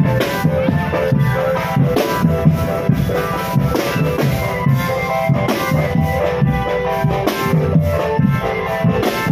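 Marching drum band playing: snare and bass drums keep a steady beat under a melody.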